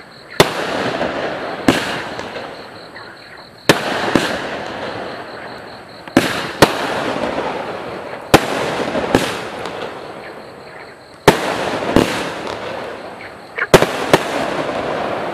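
Total FX Lunar Ray, a 12-shot 30mm firework cake, firing shot after shot: about a dozen sharp, loud bangs at uneven gaps of one to two seconds, some in quick pairs. Each bang trails off over a second or two.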